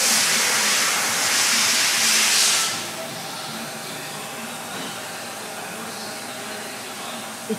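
A loud steady hiss for about two and a half seconds that cuts off sharply, followed by a quieter steady background hum and a single click near the end.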